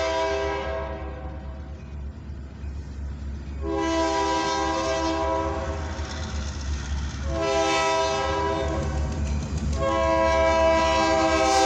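Diesel freight locomotive's air horn blowing long blasts for a grade crossing, a chord of several pitches. One blast fades out early, a second runs from about four to six and a half seconds in, and a longer one starts about seven seconds in. Under the horn is the low, steady rumble of the approaching train.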